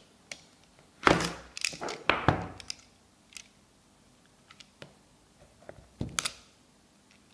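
A utility knife scraping and cutting through the seal sticker of a cardboard phone box, with knocks as the box is handled on a wooden desk. The scrapes and knocks come in short spurts, loudest about a second in, around two seconds in and again about six seconds in, with small ticks between them.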